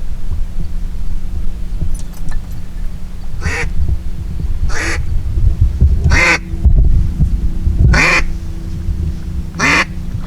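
Five loud, harsh duck quacks about a second and a half apart, over a steady low hum and rumble.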